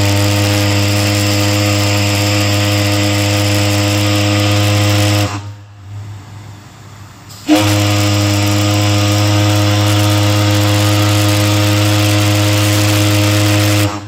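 The William H. Donner's steam whistle blowing two long, loud blasts of a steady, deep tone with steam hiss. The first blast cuts off about five seconds in, and after a pause of about two seconds the second comes on with a slight upward slide in pitch and holds to the end.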